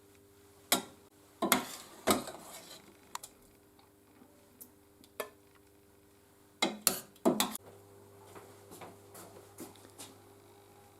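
Metal pan and utensils clinking and knocking: a few sharp clatters with short ringing early on and a quick cluster of them about seven seconds in, over a faint steady hum.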